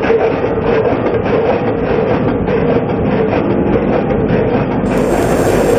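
Multihead food weigher running: a steady mechanical hum with a repeated clatter, a few times a second, of small snack pieces dropping through its stainless steel discharge funnel.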